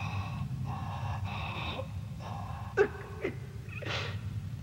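Faint whimpering and gasping breaths of someone crying, with two short sharp sobs a little past the middle and a quick breathy gasp near the end, over a low steady hum.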